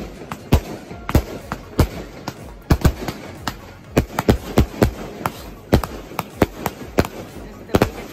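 Consumer aerial fireworks going off: an irregular string of sharp bangs and pops, about three a second.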